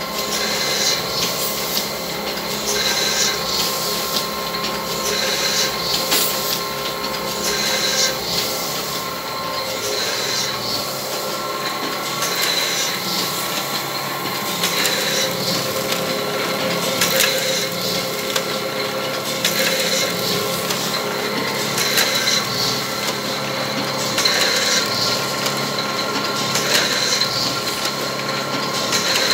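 ADAST Romayor 314 sheet-fed offset press running at production speed, its feeder, grippers and rollers making a steady mechanical run with a regular repeating clatter as sheets pass through.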